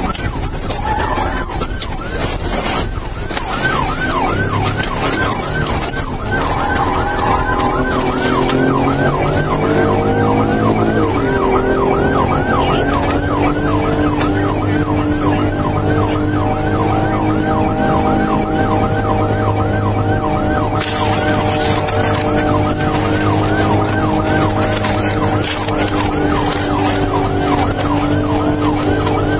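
Police siren in fast yelp mode, rising and falling about three times a second, heard from inside a pursuing patrol car with its engine running underneath.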